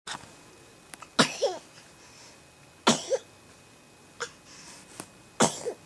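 A five-month-old kitten sneezing three times in a row: three sharp sneezes spread over about four seconds, each with a short squeaky tail.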